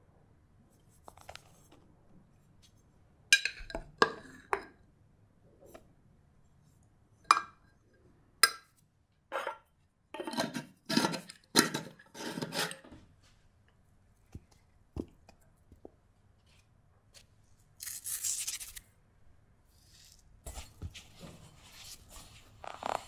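Close-up kitchen handling sounds at a glass mixing bowl. First come several sharp clicks and knocks, then a cluster of noisy strokes as flour goes into the bowl, and a brief hiss. From about 20 seconds in, fingers rub cold butter into the flour with soft rustling and crumbling, the rubbing-in stage of shortcrust tart dough.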